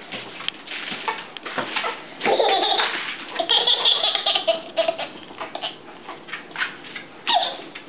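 Baby laughing, in repeated bursts that are loudest a couple of seconds in, with sharp taps and clicks scattered through.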